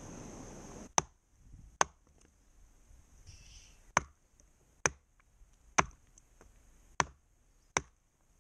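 A hatchet chopping mango wood into kindling on a wooden block: seven sharp chops, spaced about a second apart.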